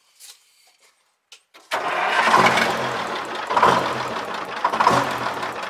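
Turbocharged, blown Detroit Diesel 6-71 two-stroke inline-six in a 1963 GMC Crackerbox cabover comes in suddenly a little under two seconds in, after a few faint clicks, and runs at idle. The sound swells in level about once a second.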